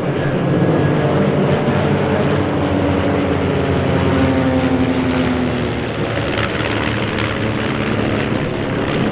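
A formation of Van's RV propeller planes flying past at an airshow. Their engines drone together and the pitch falls slowly as they go by.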